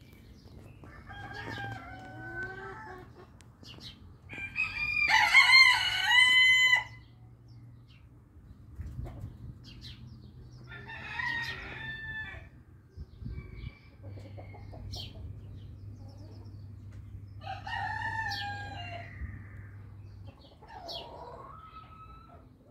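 Orpington and Marans roosters crowing in turn, about five crows in all. The loudest and nearest crow comes about five seconds in, and the others are fainter, as from birds farther off.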